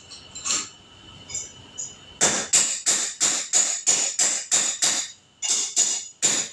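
A quick, even series of sharp taps or clicks, about three a second, starting about two seconds in after a few scattered clicks, with a brief break near the end.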